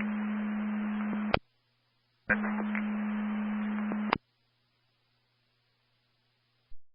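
Two-way radio scanner carrying two keyed-up transmissions with no voice: static hiss over a steady low hum, each cut off by a sharp squelch click about a second and a half in and again about four seconds in, with silence between and afterwards.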